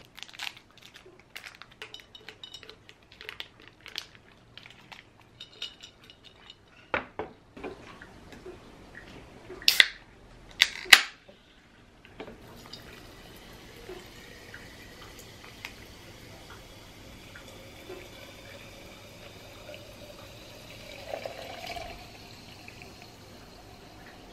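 Light rustles and small clicks as a tea packet is handled and dried fruit goes into a glass jar; about ten seconds in, a can of soda water is cracked open with two sharp hisses about a second apart. Then soda water pours into the glass mason jar over lychees and lemon, fizzing steadily, the pour's pitch rising and growing louder near the end as the jar fills.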